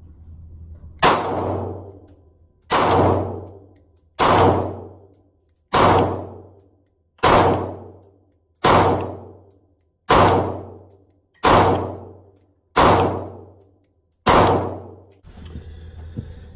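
Taurus G2C 9mm pistol firing ten shots in slow, aimed fire, about one and a half seconds apart, each a sharp crack that trails off over about a second.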